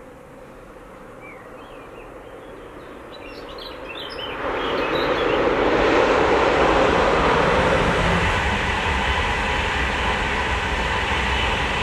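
LNER InterCity 225 electric express train approaching and passing at speed. A faint rumble swells into a loud rush of wheels on rail about four and a half seconds in, and it stays loud as the coaches go by.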